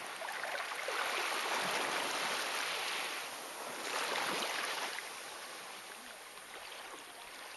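Small waves washing up over a sandy beach: a rushing hiss of water that swells twice, about a second in and again about four seconds in, then fades.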